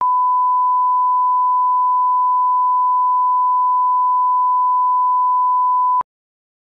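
Steady 1 kHz line-up test tone, the reference tone that goes with broadcast colour bars, a single unbroken pure beep that cuts off abruptly about six seconds in.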